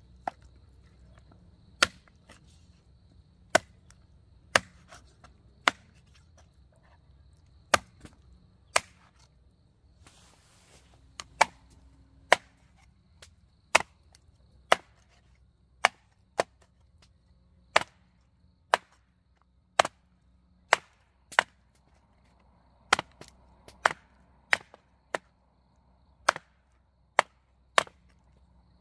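A blade chopping down onto wood: about two dozen sharp single chops, roughly one a second and unevenly spaced.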